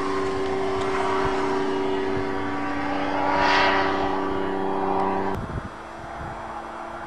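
Small ultralight airplane's engine droning steadily as it flies away overhead, with a brief swell of rushing noise about three and a half seconds in. A little past five seconds the sound drops off abruptly to a fainter, steady engine hum.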